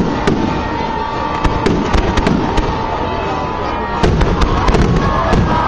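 Aerial fireworks shells bursting in a string of sharp bangs and crackles, which come thicker and louder about four seconds in.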